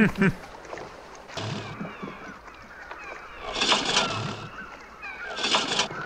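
Seagulls calling again and again over water on a film soundtrack, with three short hissing bursts and a sharp thump at the very start.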